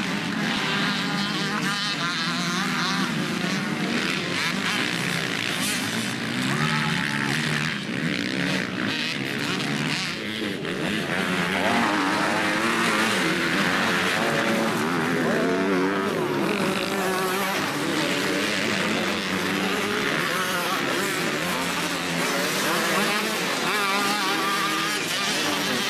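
Motocross bikes' engines revving hard, several at once, their pitch rising and falling with the throttle as they ride the dirt track.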